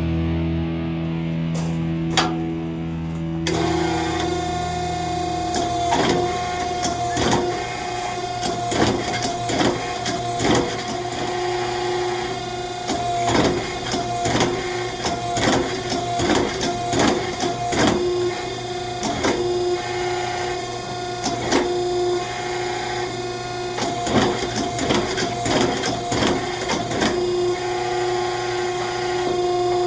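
Metalworking shop machinery running with a steady hum, over irregular sharp metallic knocks and clanks, some in quick runs, during hot forging of 4140 steel.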